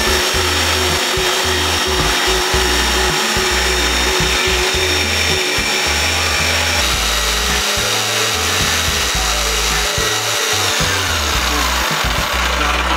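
Corded Bosch jigsaw cutting a curved line across thin padauk and yellow cedar deck strips of a wooden strip kayak, running steadily with a high whine. Its pitch drops about eleven seconds in.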